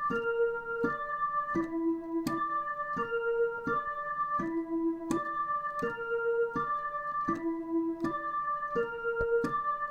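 Dutch ambulance siren sounding a repeating broken chord: steady electronic notes that step from one pitch to the next about every 0.7 seconds, each change starting with a sharp click.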